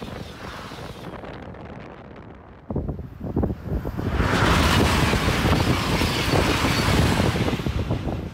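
Passing TGV high-speed train at full speed: the rushing noise of a train going by fades away, then about three seconds in a second train's noise rises suddenly and stays loud for about four seconds as it passes, falling off near the end. Wind buffets the microphone.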